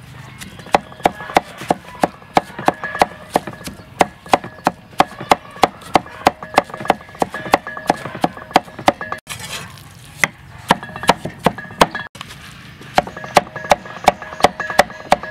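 Meat cleaver chopping pork with grated carrot and green onion on a wooden chopping block: quick, regular chops about three a second, each with a faint ring from the blade. The chopping breaks off briefly twice.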